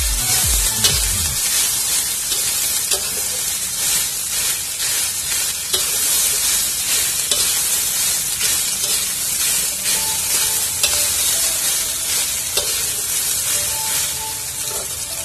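Rice with corn and carrot sizzling as it is stir-fried in a wok, a metal spatula scraping and clicking against the pan as the rice is turned and tossed.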